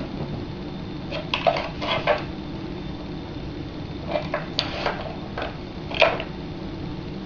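Metal clanks and clinks of transaxle gears and shift fork knocking against the case as the gear set is wiggled loose. They come in clusters about a second in and around four to five seconds, with the loudest single clank near six seconds.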